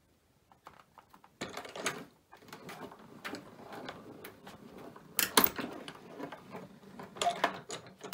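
A die-cutting machine running a sandwich of cutting plates, metal die and cardstock through its rollers, with a steady grinding as the plates feed through. Then a few sharp clacks, the loudest about five seconds in, as the plates come out.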